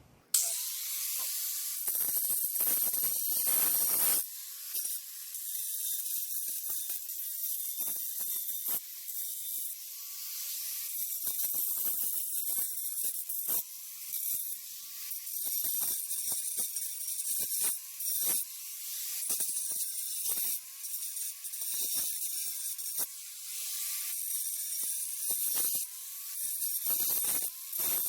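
Hitachi angle grinder cutting along a narrow concrete crack to widen it for sealant: a steady hissing rush, broken by many short dips as the cut stops and starts.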